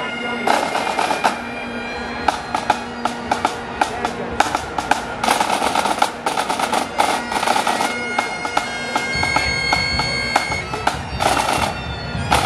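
Several bagpipes playing together, very loud, the melody over the pipes' steady drone, with drums struck along with them.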